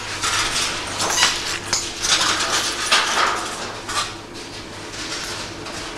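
Footsteps crunching over broken glass and rubble, with glass shards clinking and scraping underfoot in irregular bursts that thin out in the last couple of seconds.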